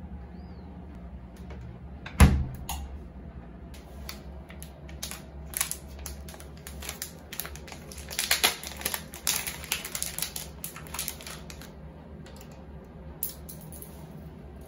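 Crinkling plastic of a holographic zip pouch being handled, with scattered clicks and taps, busiest from about eight to ten seconds in. A single loud thump about two seconds in, and a steady low hum underneath.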